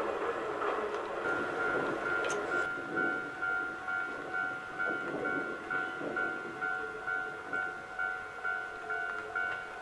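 Electric train running past. From about a second in, a level-crossing warning bell rings in a quick, even rhythm of repeated electronic dings.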